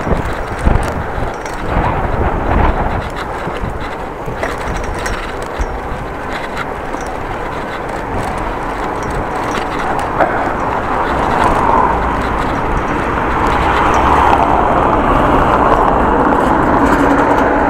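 Wind buffeting the microphone of a camera riding on a moving bicycle, over a low rumble of the ride; the noise grows louder in the second half.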